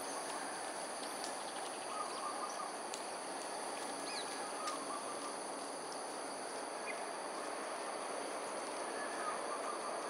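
Steady outdoor ambience: an even hiss under a continuous high-pitched insect drone, with a few brief faint bird chirps.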